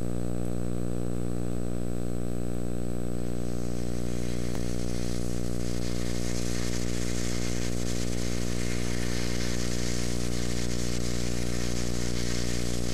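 A steady low electrical hum with a stack of overtones, unchanging in pitch and level, under a layer of hiss that grows louder about four seconds in.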